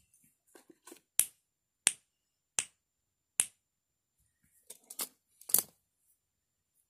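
Sharp clicks of a small handheld gadget being worked: four evenly spaced, about one every 0.7 s, then a few softer ticks and two more clicks near the end.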